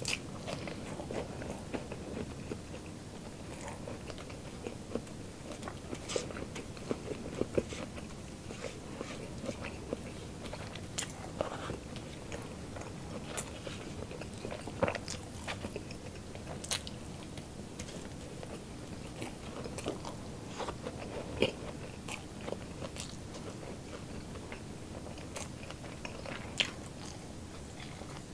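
Close-up crunching and chewing of crispy chicharon bulaklak (deep-fried pork mesentery): many sharp, irregular crunches over steady chewing, with some loud bites.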